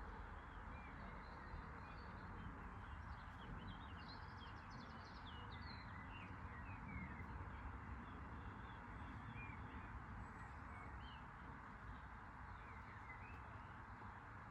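Faint birdsong: many short chirps and twitters over a steady, low background hiss, busiest a few seconds in.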